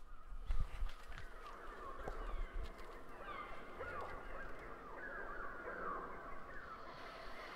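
A flock of fowl calling: many short, falling calls overlapping one another, with a few low knocks in the first couple of seconds.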